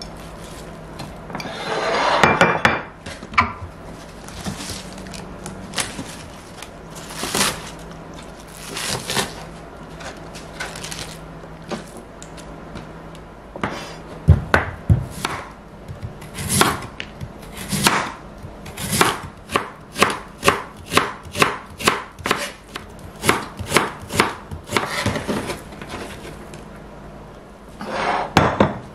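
Kitchen knife chopping on a cutting board: scattered knocks at first, then a steady run of sharp strikes about two a second through the second half. Near the start there is a brief rustling scrape of food being slid across a dish.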